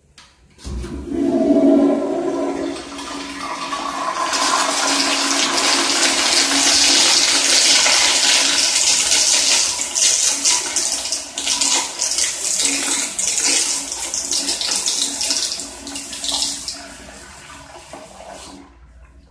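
Commercial toilet with a chrome flushometer valve flushing: the water rushes in suddenly about a second in, runs loud for several seconds, then tapers off and cuts out near the end.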